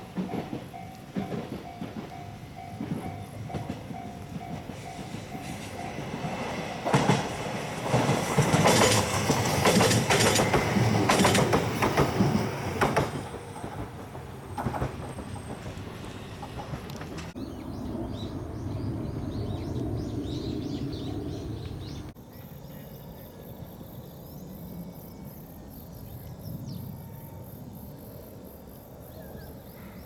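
A JR Kashii Line train passing a level crossing. The crossing's warning bell rings in an even repeating tone for the first few seconds. Then the train goes by loudly for about six seconds with the clatter of wheels over rail joints, and fades away.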